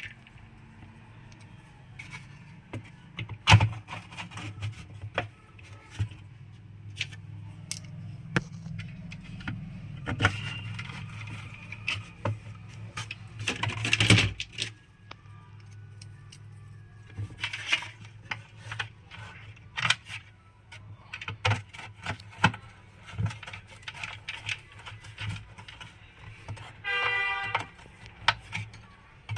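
Metal clicks and clinks of a spanner tightening the nuts that hold a mixer grinder's motor to its base, irregular and scattered. Near the end there is a short pitched tone about a second long.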